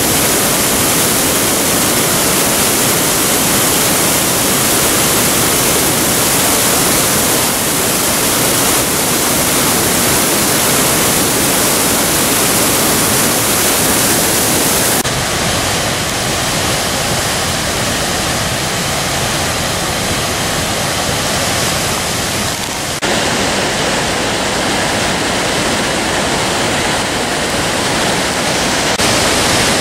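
Maskinongé River waterfall and rapids rushing loudly over rock: a steady, dense wash of falling and churning water. Its tone shifts abruptly twice, about halfway through and again later, losing some of its hiss.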